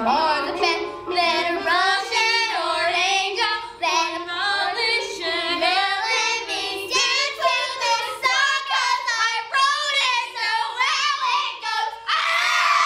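Young girls singing a pop song together over backing music, with melodic lines that rise and fall; about a second before the end they break into loud screaming.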